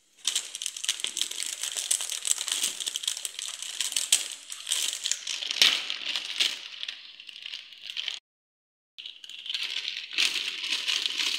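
Plastic instant-noodle wrapper crinkling as it is handled and cut open with scissors, then rustling as the noodle block and seasoning sachets are shaken out onto a plate. The sound breaks off for a moment about eight seconds in.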